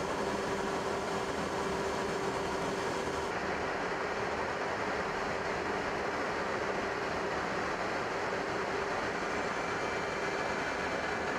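Steady drone of jet aircraft in flight: engine and rushing air noise with a few constant hums under it. The hiss turns duller about three seconds in.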